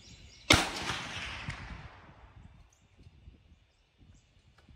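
A single rifle shot from a Rossi RB22M bolt-action .22 WMR about half a second in: a sharp crack followed by an echo that trails off over about a second and a half.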